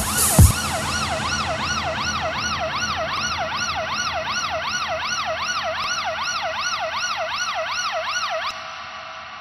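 A yelp-style siren sound whose pitch sweeps up and down about two and a half times a second, set in an electronic music track. A single drum hit sounds right at the start, and the siren cuts off suddenly near the end, leaving a fading tail.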